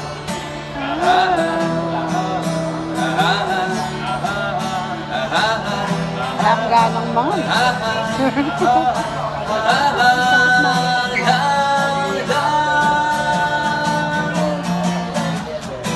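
Live acoustic guitar strummed while a man sings a slow ballad.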